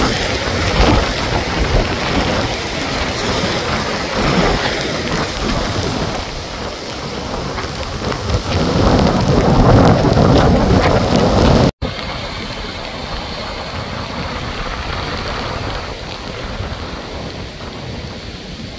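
Storm surf breaking and surging over a rocky shoreline in gusting wind, a loud rushing roar that rises and falls. About twelve seconds in it cuts to a steady hiss of heavy rain falling on a flooded street.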